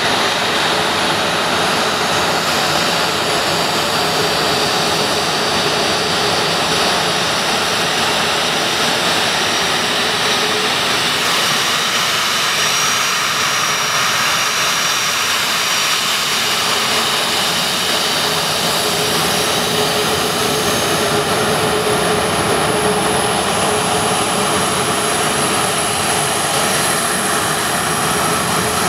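Twin CFM56 turbofan engines of a Boeing 737 Classic at taxi power: a steady jet whine with thin high whistling tones over a broad rushing hiss, as the airliner taxis close by.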